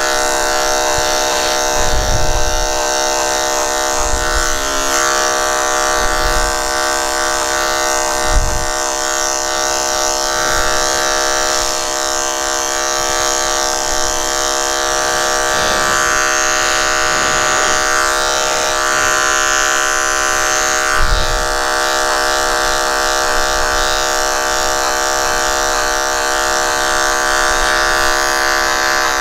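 Corded electric dog clipper running with a steady buzzing hum as it shaves through a matted Bichon Frise coat, with a few dull thumps from handling.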